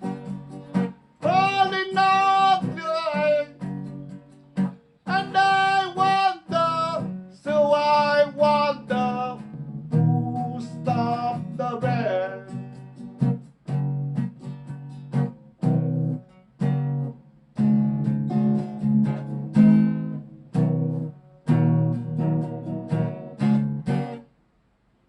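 A tenor voice singing long held notes with vibrato over strummed acoustic guitar. The singing stops about halfway, and the guitar strums on alone in short chords until it stops about a second before the end.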